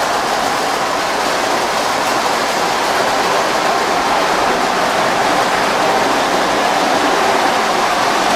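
Lionel postwar toy train running on three-rail tubular O-gauge track: a steady rushing noise of the Alco F-A2 locomotives' motors and the cars' wheels, even and without a clear clickety-clack.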